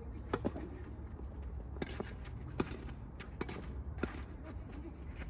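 Tennis rally in doubles: a serve about a third of a second in, then the sharp pops of racquets striking the ball and the ball bouncing on a hard court, about seven in all, spaced roughly a second apart.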